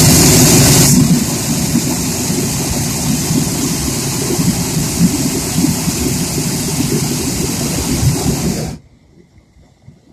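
Hot air balloon propane burner firing in a long blast, a loud steady roar that is strongest for about the first second, then eases slightly and cuts off abruptly near the end.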